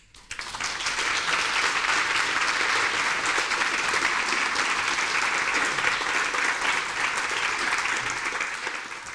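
Lecture-hall audience applauding. The clapping swells in the first second, holds steady, and fades away near the end.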